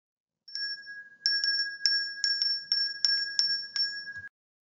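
Bright tinkling chime sound effect: about a dozen quick, unevenly spaced chime strikes ringing over two held high tones, cutting off suddenly shortly before the end.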